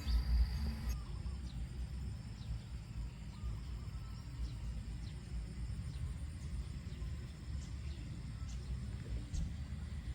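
Outdoor ambience: a steady low rumble under short, high, falling bird chirps that come every second or so. Steady high tones in the first second stop abruptly.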